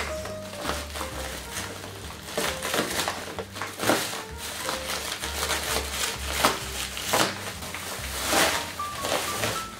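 Plastic mailer bag and bubble wrap crinkling and tearing as the parcel is slit with a knife and pulled open by hand, in quick irregular rustles, over background music with a bass line.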